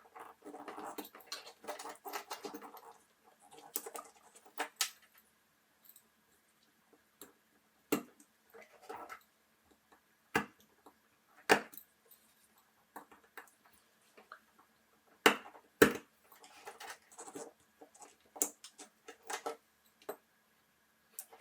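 Small metal watch parts and tools being handled during reassembly. Light scraping and rattling come first, then a series of sharp metallic clicks, the loudest a pair close together past the middle.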